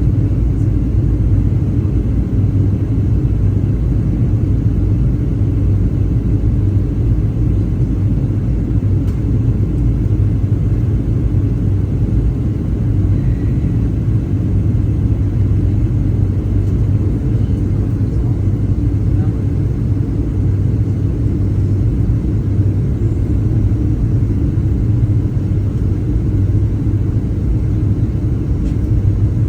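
Steady low cabin rumble of a Boeing 737-900ER airliner, its engine noise heard from inside the passenger cabin.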